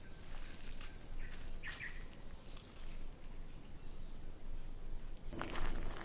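Rainforest insects trilling steadily at a high pitch, with a brief bird call about two seconds in. Near the end the insect tone grows louder and footsteps on a dirt trail with leaf litter begin.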